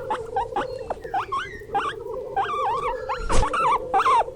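Guinea pig squeaking: many short, high squeaks and chirps that slide up and down in quick succession over a steady hum, with one sharp click about three and a half seconds in.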